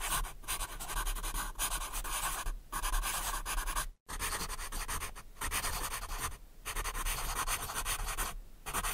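Scribbling on paper, a dry scratchy rasp in strokes of one to two seconds with short breaks between them.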